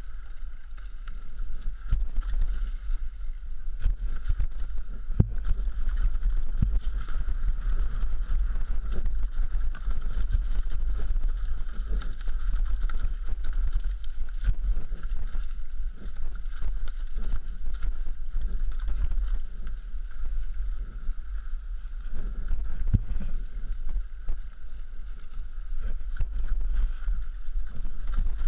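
Downhill mountain bike descending a rough forest trail: steady wind rumble on the on-board microphone, with frequent rattles and knocks from the bike over roots and rough dirt.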